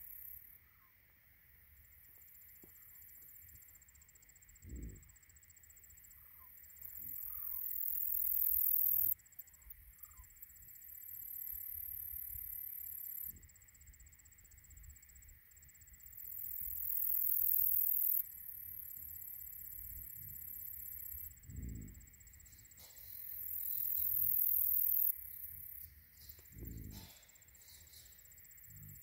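Insects in the pasture grass buzzing in high swells that build over a few seconds and stop abruptly, three times, over a steady insect drone. A few short low grunts from bison cows come through between the swells.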